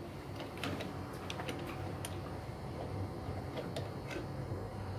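Scattered light clicks and taps of metal tools and pump parts being handled, irregular and faint, over a steady low hum.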